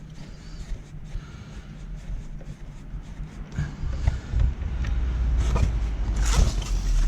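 Faint clicks and scrapes of small hand work, then a low vehicle-like rumble that builds up over the second half and drops away suddenly at the end.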